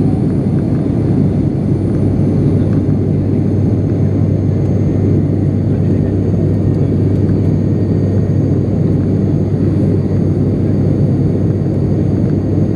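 ATR 72-600 turboprop engines and propellers in flight, heard inside the passenger cabin as a steady low drone with a constant deep hum and a rushing noise.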